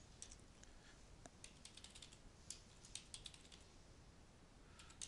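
Faint computer keyboard typing: a quick run of key clicks with short pauses between them.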